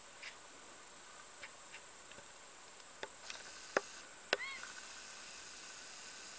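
Faint, steady high-pitched chirring of field insects, with a few sharp clicks between about three and four and a half seconds in, the last followed by a short chirp.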